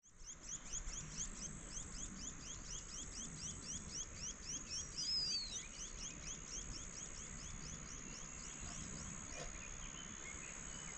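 Outdoor insect and bird sounds: a steady high insect trill under a rapid run of short high chirps, about four a second, that fades out about eight seconds in. About five seconds in, a single bird gives one falling whistle.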